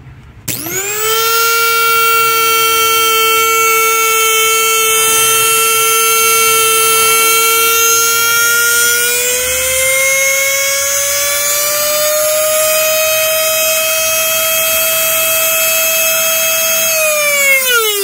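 Oster blender's universal motor, with freshly rewound field coils, switched on and speeding up at once to a steady high whine that rises a little in pitch about halfway through. It is switched off near the end and winds down with falling pitch. The field leads have just been swapped, and it is now turning in the correct direction.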